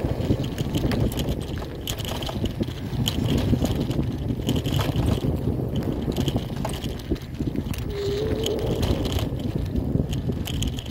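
Bicycle riding over a dirt and grass trail: a steady tyre and frame rumble with frequent small rattles and clicks, and wind buffeting the microphone. About eight seconds in there is a brief wavering tone.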